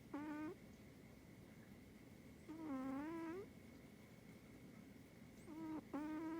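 Persian chinchilla cat snoring in its sleep: three short, pitched snores about three seconds apart, the first and last each broken in two.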